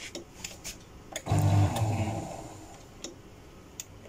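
Jammed paper shredder's motor switched on: it gives a loud, low, strained hum for about a second, then dies away because the blocked cutters cannot turn. A few light clicks come before and after.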